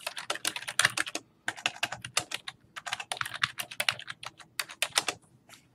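Typing on a computer keyboard: a quick, irregular run of key clicks with a short pause a little over a second in, thinning out near the end.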